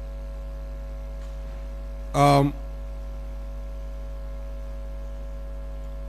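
Steady electrical mains hum picked up through the microphone system. About two seconds in, the speaker makes one short voiced hesitation sound, like a brief "em".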